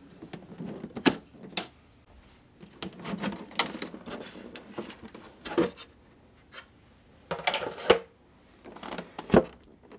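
Scattered sharp clicks and knocks of the plastic canopy and its latch on a Traxxas Spartan RC boat hull as the latch is undone and the canopy is lifted off, with light handling rustle between them.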